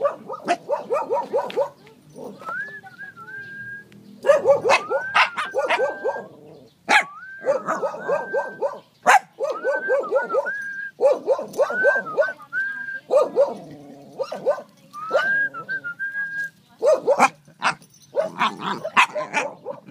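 A young dog vocalising in play: repeated runs of quick yapping barks, alternating with higher whines that rise and then hold steady.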